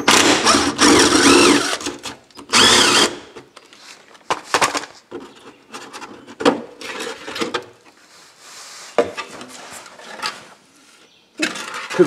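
Cordless drill spinning out the screws of a lift-winch cover: two short runs of the motor in the first three seconds, its pitch rising and falling, then scattered knocks and scraping as the cover is worked loose by hand.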